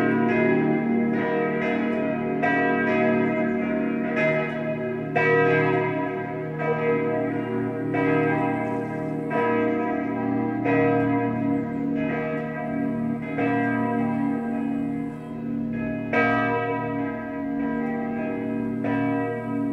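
Church bells of the St. Laurentius parish church, cast by Czudnochowsky of Erding and tuned b° es' f' g' b', swinging and ringing together in an irregular, overlapping peal. Strokes fall about one to two a second over a steady low hum of ringing tones.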